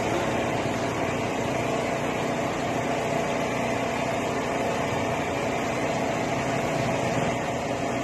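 A machine running steadily: a constant drone with a steady hum, unchanging throughout.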